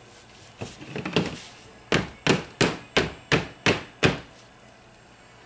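A tray of silicone cupcake molds filled with cold-process soap batter being rapped against the countertop: a few light knocks, then seven sharp knocks about three a second from about two seconds in. Rapping the filled molds like this settles the batter and brings up air bubbles.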